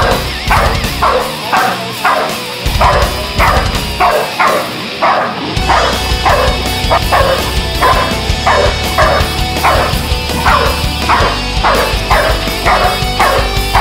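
Protection-trained dog barking at a decoy in a bite suit, a fast, steady run of barks at about three a second, over background music.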